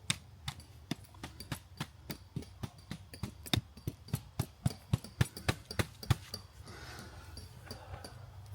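Tent pegs being hammered into the ground: quick, even strikes, about four a second, stopping about six seconds in.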